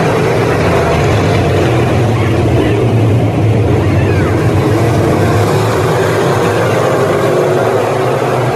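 Street stock race car engines running hard at racing speed, a loud, steady drone with no let-up.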